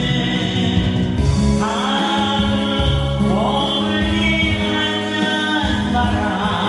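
Music with voices singing together like a choir over an instrumental accompaniment with a steady bass line.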